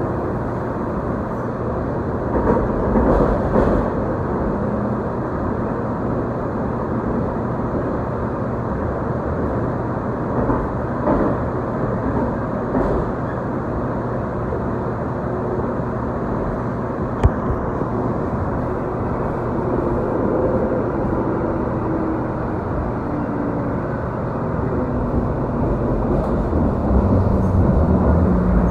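Inside a Tide light rail car (Siemens S70) running between stations: a steady rumble of wheels on rail. There is one sharp click about two-thirds of the way through, and a faint whine that falls in pitch in the later part.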